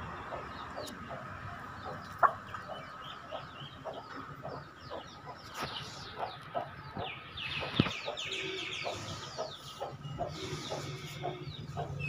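Chickens clucking, with many short low notes and bunches of quick high chirps scattered through. There is a sharp knock about two seconds in and another near eight seconds.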